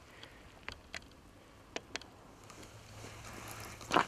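A few faint small water splashes and knocks, each short and separate, the sharpest just before the end, over a low steady hum.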